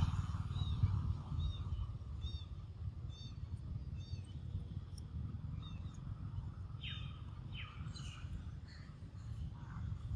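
A bird chirping, short high notes repeated about once a second, then a few falling calls later on, over a steady low rumble.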